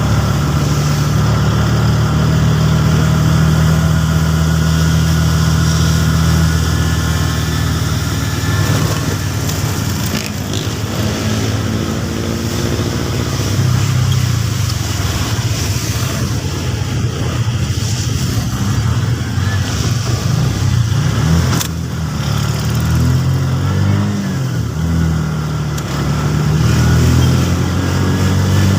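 A road vehicle's engine running continuously, its pitch rising and falling a few times, with one sharp click about three-quarters of the way through.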